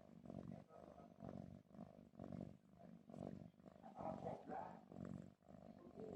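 Faint, rough snoring, swelling and fading with each breath.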